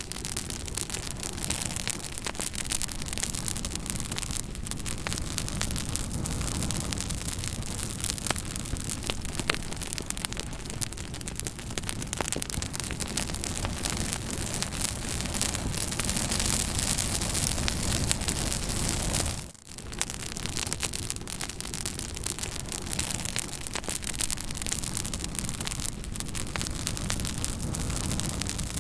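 Wood fire crackling, with frequent sharp pops and snaps over a steady hiss. The sound dips briefly about two-thirds of the way through.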